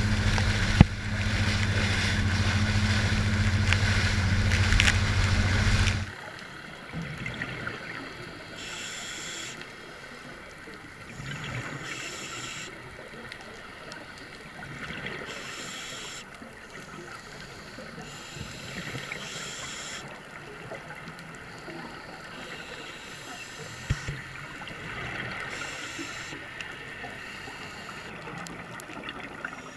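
A dive boat running at speed: a steady engine hum under water rushing and splashing along the hull. It cuts off suddenly about six seconds in. Then comes the quieter underwater wash of a scuba dive, with a diver's regulator exhaling bubbles in hissing bursts every few seconds.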